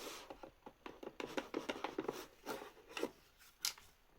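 A headphone box being handled and opened: irregular light scrapes, rubs and clicks, with one sharper click near the end.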